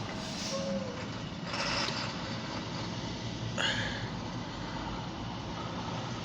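Steady rumble of a slowly moving short freight train and its diesel locomotive, with a brief higher-pitched sound about three and a half seconds in.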